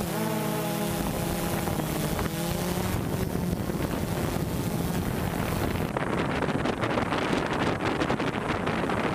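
Mark VI patrol boat running at speed with wind on the microphone. A steady pitched engine hum is heard over the first two to three seconds. After a cut about six seconds in, it gives way to a rougher rush of wind and water.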